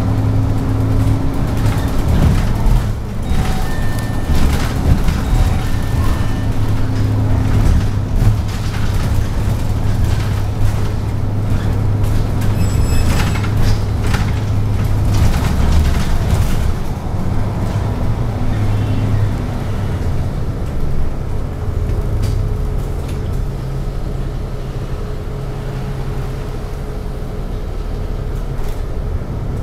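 City bus engine running, heard from inside the cabin at the front as the bus drives along, a steady low drone. About twenty seconds in, the engine note changes and the sound eases off a little as the bus slows in traffic.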